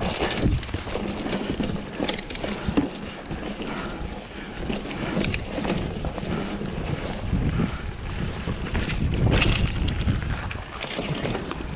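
Wind rushing over a rider-mounted action camera's microphone while a full-suspension mountain bike rolls over dirt, roots and rock, with short knocks and rattles from the bike over bumps. The noise swells for a moment about nine seconds in.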